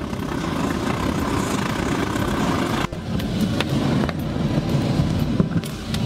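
Waste-oil burner running at low output into a brick furnace: a steady roar of flame and electric blower, broken briefly about three seconds in.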